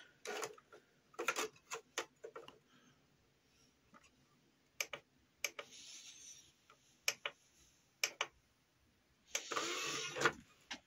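Scattered sharp clicks and knocks of a disc being handled and loaded into a player for testing, with a couple of brief rustling sounds, one around the middle and a longer one near the end.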